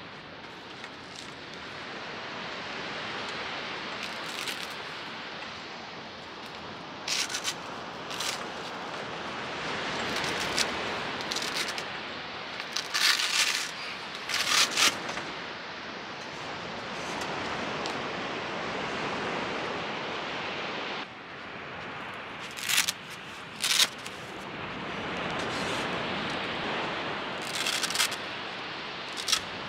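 Surf washing onto a beach, a noisy hiss that swells and fades every several seconds, with short, sharp rustling scrapes on top several times.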